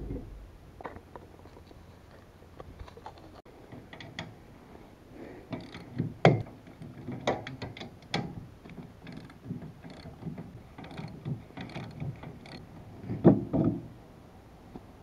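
Irregular metallic clicks, clinks and knocks of an electric trailer brake assembly being worked on by hand as its backing plate is taken off the axle to be turned around, with the loudest knocks about six seconds in and again near the end.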